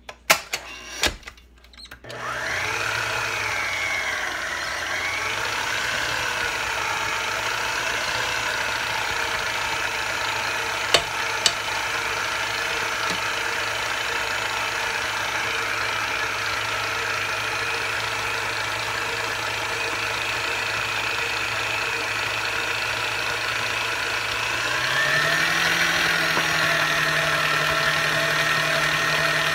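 Electric mixer switched on about two seconds in and running steadily as it beats cream cheese frosting, then stepped up to a higher speed near the end. Two sharp clicks come near the middle.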